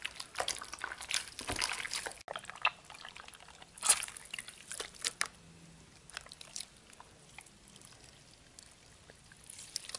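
Watery glue-and-borax slime squelching as hands knead it in a bowl, then pouring and dripping back into the bowl as a stretching mass of it is lifted out. Irregular wet splats and drips, the loudest about four seconds in.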